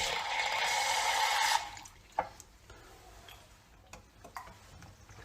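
Water running for about a second and a half, then stopping, followed by a few faint clicks.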